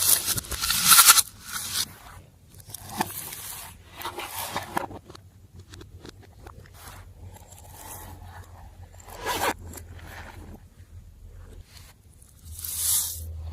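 Glossy slime being mixed and stretched by hand, making irregular sticky scraping and squelching strokes, loudest in the first two seconds.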